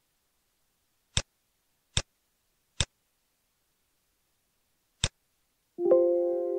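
Four sharp computer mouse clicks, three about a second apart and a fourth a couple of seconds later, then near the end the Windows warning chime, a ringing tone of several notes that fades, signalling a warning message box.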